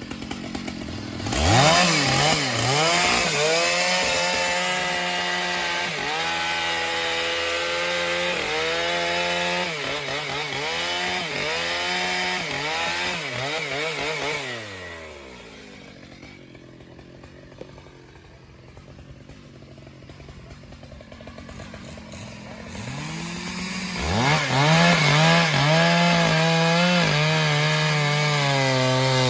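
Chainsaw revving up and cutting wood, its pitch dipping and recovering as the chain bites. About halfway through it drops back to a low idle for several seconds, then revs up again near the end.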